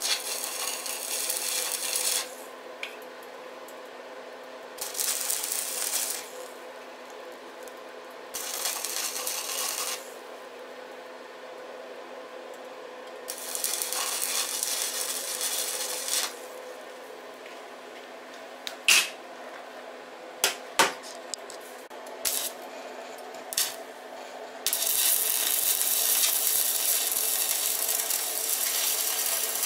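Stick (arc) welder's arc crackling and sizzling in five runs of one to five seconds as beads are laid on a tubular steel motorcycle frame. Between the later runs there are a few sharp metallic clicks.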